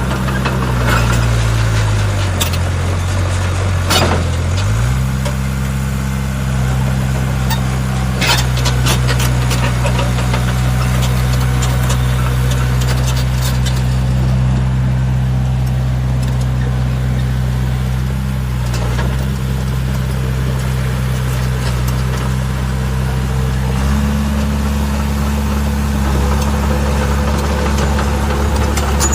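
RC model CAT D5G bulldozer running, its low engine-like drone steady but shifting up in pitch a few times as it works, with a couple of sharp clicks along the way.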